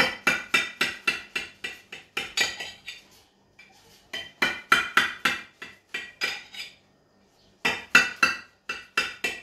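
A metal knife clinking against the bottom of a glass oven dish while cutting a frittata: quick ringing taps, about five a second, in three runs with short pauses between them.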